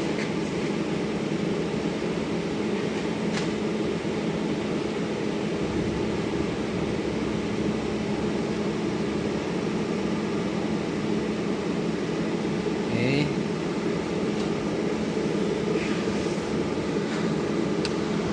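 Repaired automatic welding machine running under test with a steady hum, with a few faint clicks and a brief rising voice-like sound about 13 seconds in.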